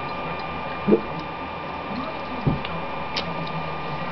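Steady mechanical hum with a faint high whine, with two short dull knocks, about a second and two and a half seconds in, and a few faint ticks.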